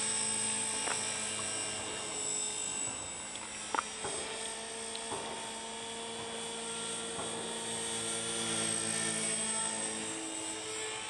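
HK450 electric RC helicopter in flight: the steady whine of its brushless motor and rotor blades, pitch shifting a little as it flies. A short sharp click about four seconds in.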